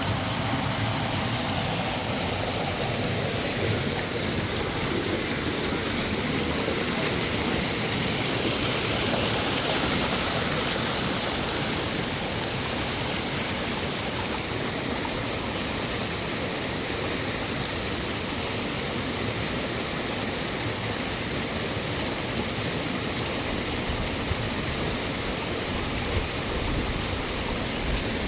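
Mountain river water flowing, a steady even noise with no breaks.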